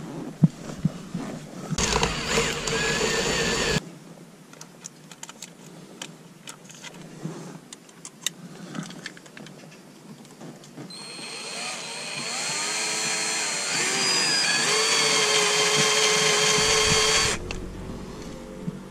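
Black & Decker cordless drill boring into the head of a stripped steering-wheel bolt, widening the hole for a screw extractor. It runs briefly about two seconds in. From about eleven seconds it runs again, speeding up and then holding steady for roughly six seconds before stopping, with clicks of handling between the two runs.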